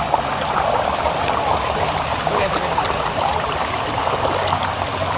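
Water rushing steadily down a water-slide chute and churning around a rider's inflatable tube at the mouth of an enclosed tunnel.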